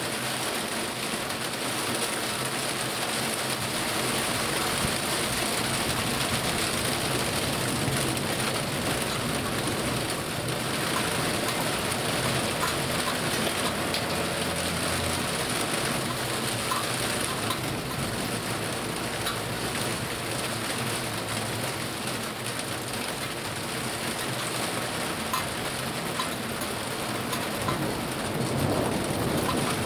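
Heavy thunderstorm rain pouring steadily onto roofs and the ground. A low rumble of distant thunder comes through about halfway.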